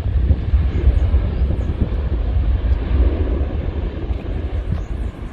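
Twin-engine jet airliner's engines at takeoff thrust during the takeoff roll and lift-off: a continuous deep rumble under a rushing roar, easing slightly near the end.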